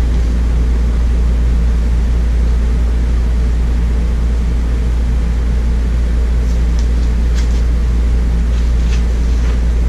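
Steady low machine hum with a faint even hiss over it, and a few faint ticks in the second half.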